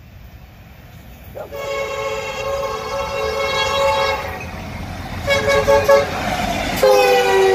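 Union Pacific EMD SD70M diesel locomotive's multi-note air horn sounding a long blast, a short one, then another long one that drops slightly in pitch as the locomotive passes close by. The diesel engines rumble underneath, growing louder as the train approaches.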